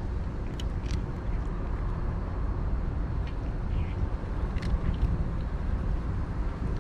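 A cat eating dry food from a metal dish, licking and chewing, heard as a few faint sharp clicks over a steady low background rumble.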